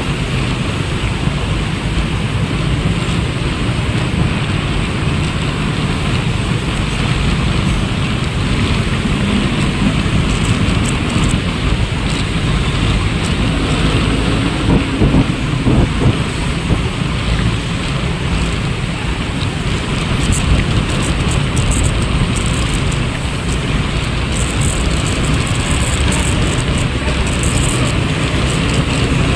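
Steady wind rumble on the microphone mixed with road and traffic noise from a vehicle moving through traffic.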